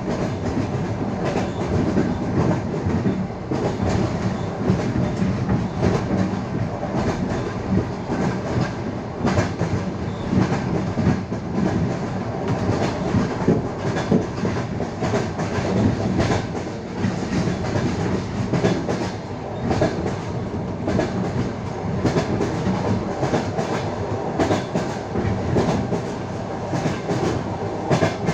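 Passenger train wheels clattering over the rail joints with quick, uneven clicks over a steady rumble of the moving carriage.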